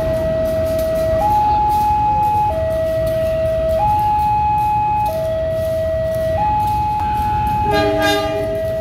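A two-tone warning alarm alternating steadily between a low and a high tone, each held about a second and a half, over the low rumble of the CC201 diesel-electric locomotives moving slowly. A short, buzzy blast sounds near the end.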